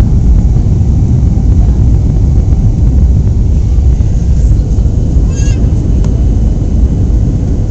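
Steady low rumble of an airliner cabin during descent: jet engine and rushing airflow. A little past the middle, a brief high squeak, followed by a faint click.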